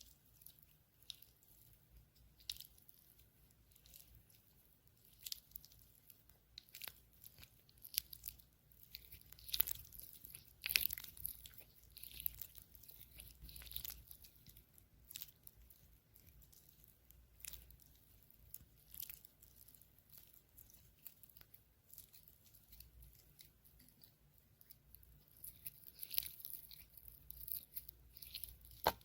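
Soft, irregular crackles and taps close to the microphone, ASMR-style, thickest about ten seconds in and again near the end.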